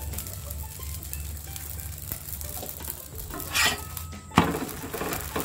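A filled flatbread (uppittu) sizzles softly on a hot iron tawa over a low steady hum. About three and a half seconds in, the bread is turned with a metal spatula: a short scrape, then a sharp clack of metal on the tawa.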